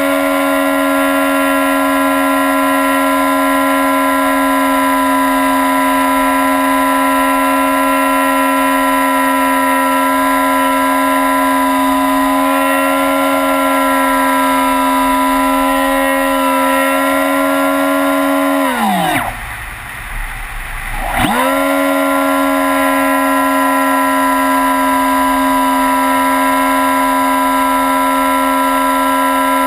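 Model airplane's motor and propeller whining at a steady high pitch. About two-thirds of the way through, the pitch drops away sharply as the motor is throttled back, stays low for about two seconds, then climbs back to full.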